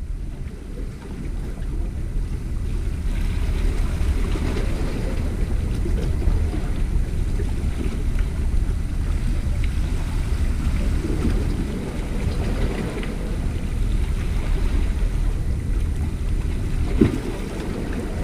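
Wind buffeting the microphone over small sea waves washing against the rocks of a seawall, a steady low rumble, with one sharp knock near the end.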